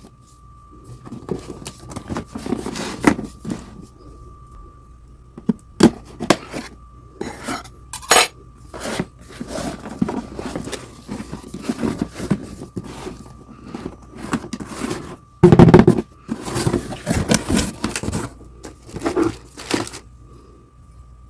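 Hands unpacking a boxed jigsaw: irregular rustling, clicking and knocking of cardboard and hard plastic parts, with the loudest clatter about fifteen seconds in. A faint steady high tone hums underneath.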